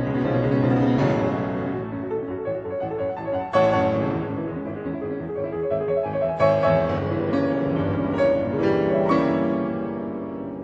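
Background piano music, with new chords struck every few seconds.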